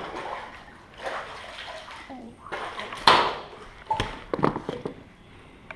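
Water splashing and sloshing in several short bursts, the loudest about three seconds in, with brief snatches of a person's voice.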